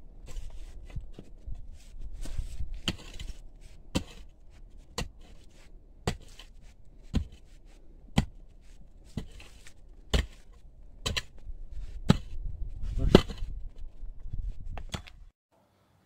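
A hand tool hacking at stone masonry and packed earth: sharp strikes about once a second, with the sound cutting off abruptly near the end.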